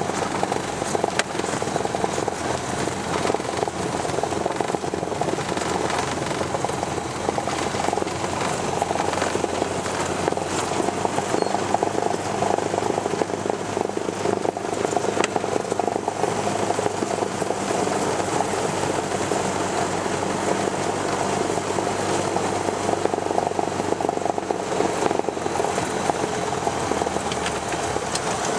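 Single-engine Cessna's piston engine and propeller running steadily, heard inside the cabin, as the plane lands and rolls along a grass airstrip.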